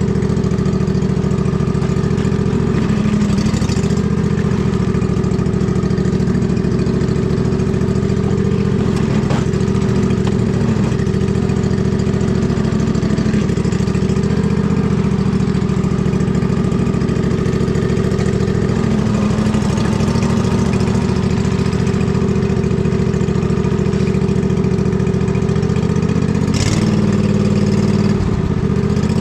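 Husqvarna riding lawn mower's engine running steadily as the mower is driven, its pitch dipping and rising slightly a few times, most noticeably near the end.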